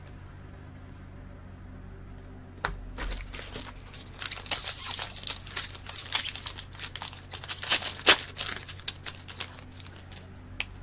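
A 2019-20 Upper Deck SP Authentic hockey card pack wrapper being torn open and crinkled, in a run of fine crackling from about four to nine seconds in, after a single sharp click.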